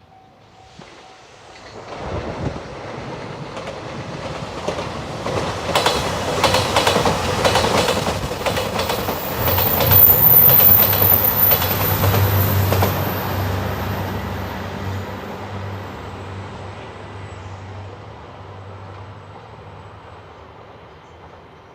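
Passenger train passing at speed. Its wheels clatter over the rail joints, the sound building up to a peak about ten seconds in and then slowly fading away.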